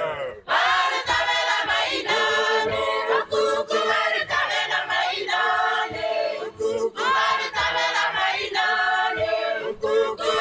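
A choir singing, several voices together, as background music.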